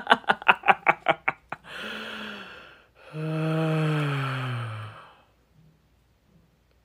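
A man laughing in quick, even bursts about eight a second, then a breathy gasp, then a long voiced exhale that falls steadily in pitch like a drawn-out sigh; it stops about five seconds in.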